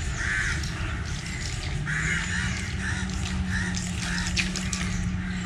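Crows cawing repeatedly, a short harsh call every half second to a second.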